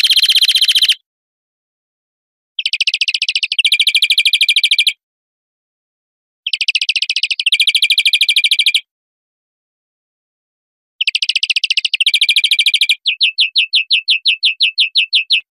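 European greenfinch song: rapid high trilled phrases about two seconds long, each switching to a second trill partway through, repeated every four seconds or so; the last phrase runs into a slower series of about six notes a second. It is a played recording used as a lure call for trapping wild greenfinches.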